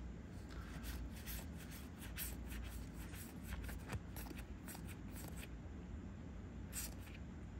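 Trading cards being flipped and slid against one another in the hands, a run of light, quick snaps and swishes with a short pause near the end.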